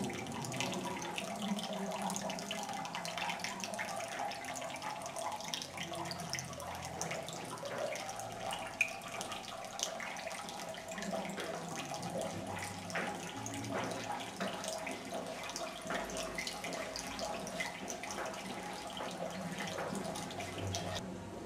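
Water trickling and splashing steadily from a small wall fountain into its shell-shaped stone basin.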